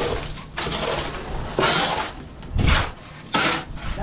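A shovel scraping and scooping wet concrete mix on a concrete slab: several rough strokes with short pauses between them.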